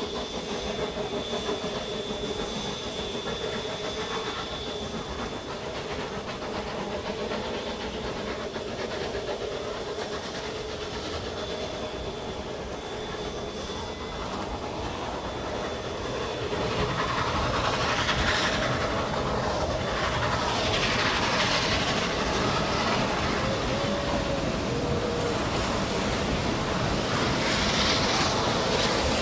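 A narrow-gauge steam train rolling along the track, heard from an open passenger car: a steady rumble of wheels on rail with clickety-clack and some steam hiss. A faint high whine runs through the first half, and the running noise grows louder a little over halfway through.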